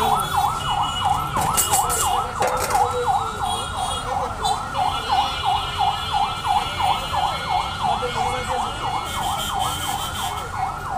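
A siren in a fast yelp, its pitch sweeping down and up about four times a second without a break, with a few short clatters about two seconds in.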